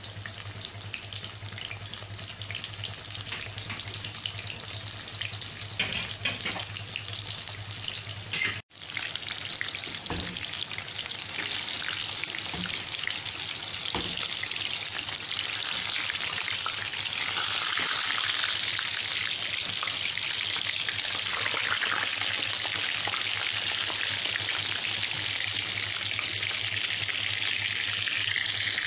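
Breadcrumb-coated sole fillets sizzling as they shallow-fry in hot oil in a pan: a steady frying hiss with occasional pops. The sound drops out for a moment about nine seconds in and grows a little louder from about eleven seconds on.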